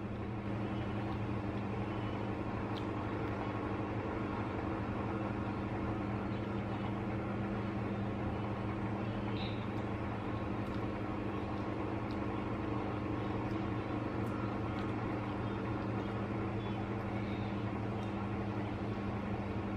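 Steady low hum of a running household appliance, with a few faint clicks and taps from eating by hand off a plate.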